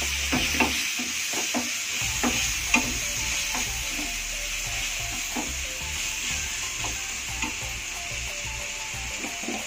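Chopped vegetables sizzling in oil in a nonstick frying pan as a wooden spatula stirs them. The spatula knocks and scrapes against the pan in quick succession over the first few seconds, then only now and then, over a steady sizzle.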